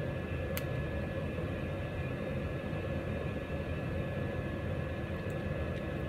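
Steady background hum and hiss, with a few faint steady tones, like a fan or other machine running, and one faint click about half a second in.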